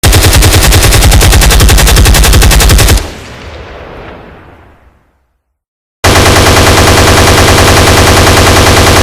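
Automatic gunfire sound effect: two long bursts of very rapid, evenly spaced shots. The first stops abruptly about three seconds in and its echo fades over the next two seconds. The second burst starts about six seconds in.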